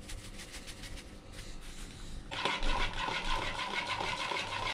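Salt shaken from a shaker over a plastic bowl in quick, even ticks, then from about two seconds in, a spoon stirring and scraping the food in the plastic bowl.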